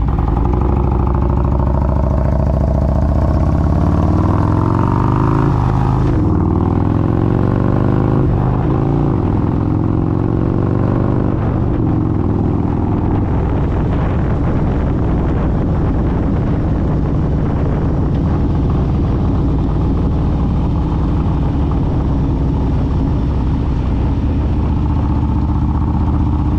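Harley-Davidson Milwaukee-Eight V-twin pulling away from a stop on its Rekluse automatic clutch, the pitch rising as it accelerates, dropping at a gear change about six seconds in, then running steadily at cruising speed. Wind noise on the microphone throughout.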